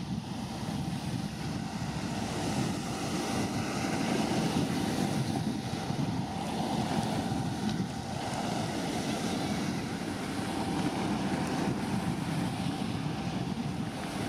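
Wind buffeting the microphone, a steady low rushing rumble that rises and falls, over the faint steady hum of a passing tanker's and its harbour tugs' engines.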